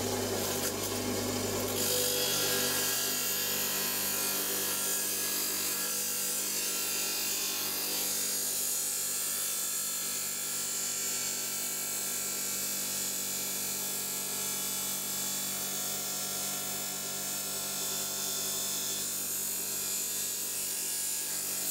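Electric stone saw running steadily as it cuts through an agate nodule, a motor hum under a gritty cutting hiss that grows stronger about two seconds in.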